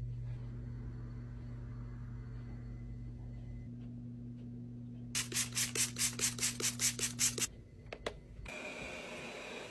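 A trigger spray bottle of counter spray squeezed about ten times in quick succession, each squeeze a short hiss, about five a second, over a low steady hum. Near the end come two clicks, then a robot vacuum starts up with a steady whir.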